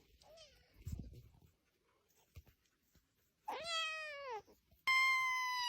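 Domestic cat meowing twice: a drawn-out meow that falls in pitch at the end, then a higher, steadier meow that cuts off suddenly.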